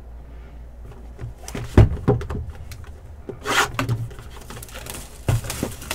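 Trading cards and packs being handled on a table: a few short knocks, the loudest about two seconds in, and a brief rustle of cards sliding around the middle, over a low steady hum.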